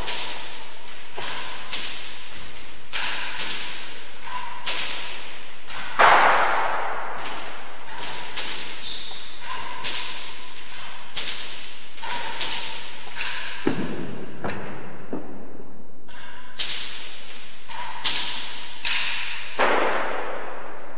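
A rally: a hard ball cracking off rackets and the court walls in quick succession, about one hit every half second to a second. Each hit rings out in the enclosed hall, the loudest about six seconds in.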